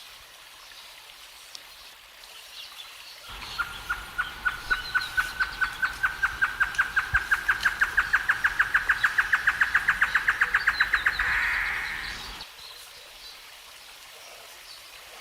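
Great antshrike (Taraba major) singing one song: a series of short notes that speeds up and rises slightly in pitch over about seven seconds, ending in a brief rough snarl.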